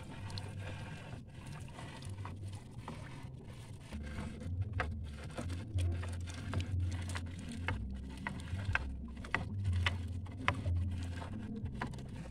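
Water dripping and splashing at the side of a small outrigger fishing boat, over a steady low rumble. From about four seconds in, many short, pattering drips and splashes come in quick, uneven succession.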